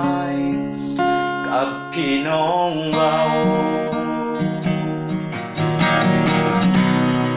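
Acoustic guitar strummed in a steady rhythm with a man singing over it.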